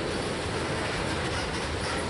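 Freight train of tank cars rolling past, a steady rumble of steel wheels on the rails.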